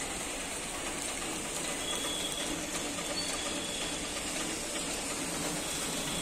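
Heavy rain falling, a steady even hiss, with a couple of faint brief high chirps over it.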